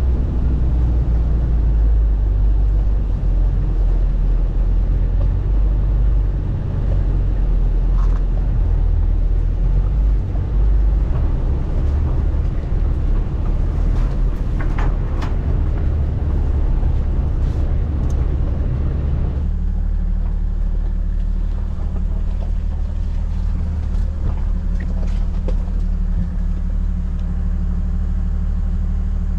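4WD vehicle driving slowly over a rough gravel track, its engine and tyres making a steady low rumble with a few sharp clicks of stones. About two-thirds through, the sound narrows to a steadier, muffled engine drone heard from inside the cab.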